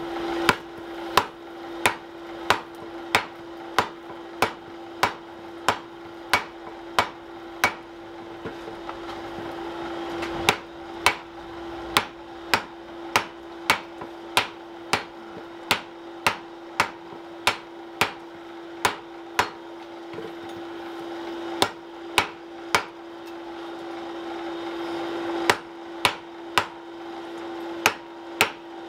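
Hand hammer striking red-hot wrought iron on an anvil: sharp, ringing blows about one and a half a second, with a few short pauses between runs of strikes. A steady low hum runs underneath.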